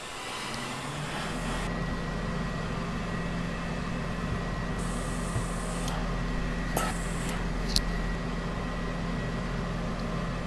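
Steady machine hum from steam-pressing gear while a steam iron presses wool coat fabric through a pressing cloth. Two short spells of hiss come early and midway, and two light knocks fall about seven and eight seconds in.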